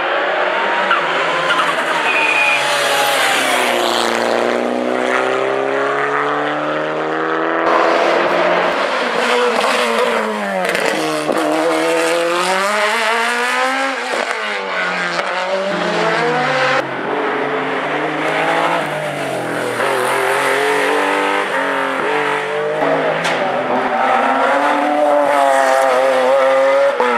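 Hill-climb race cars driven hard past the roadside, engines revving up through the gears and dropping on downshifts and lifts. The sound comes in three separate passes, with abrupt changes about a third and two-thirds of the way through.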